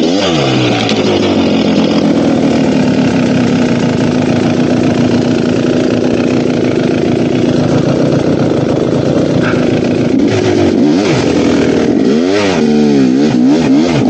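GasGas dirt bike engine running, holding steady revs for several seconds, then revving up and down repeatedly near the end as the throttle is worked.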